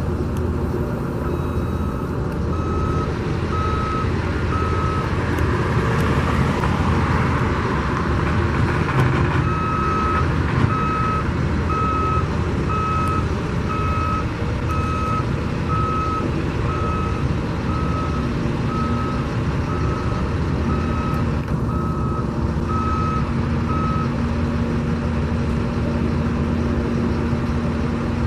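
Construction vehicle's reversing alarm beeping about once a second, with a break of a few seconds after the first few beeps, stopping near the end. Under it runs a steady low rumble of traffic and machinery.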